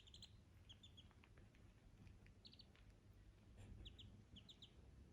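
Duckling peeping faintly: short high peeps in quick clusters of two or three, a cluster every second or so.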